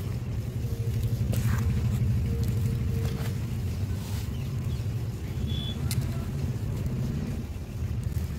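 Steady low rumble with faint soft rustles and a few light ticks of dry soil being stirred by hand and poured out of a plastic bowl.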